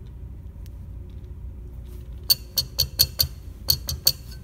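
Sharp metal-on-metal taps, about eight in under two seconds starting about halfway through, each with a brief high ring, as a metal orthotic stirrup and steel square are knocked and adjusted against a bench vise to get the stirrup square. A low steady hum sits underneath.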